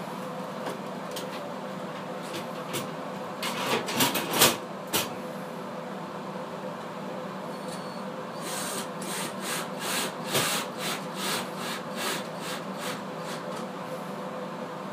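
Hand work noises: a few knocks, then a run of quick scraping or rubbing strokes, about three a second, over a steady hum.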